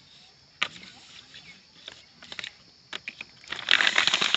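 Plastic bag crinkling as a bag-wrapped submersible pump motor is gripped and handled. A few sharp clicks come first. The crinkling is loudest for about a second near the end.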